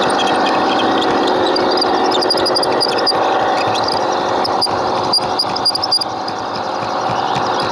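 Garden-railway model train running on its track, a steady mechanical whirring from its motor, gearing and wheels, with a few sharp clicks a little past halfway.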